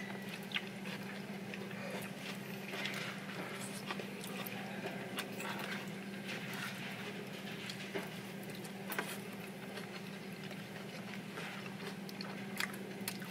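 Quiet eating: scattered light clicks of chopsticks against plates and food over a steady low hum.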